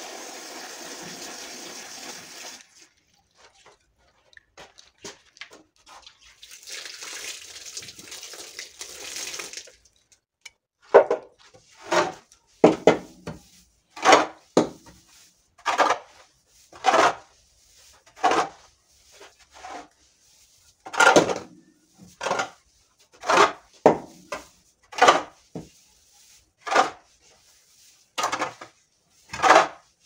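A pitchfork tossing and turning a pile of wet straw: from about eleven seconds in, a sharp rustling swish roughly once a second. Before that comes a steady hiss that cuts off about two and a half seconds in, a few light rustles, and a second shorter hiss.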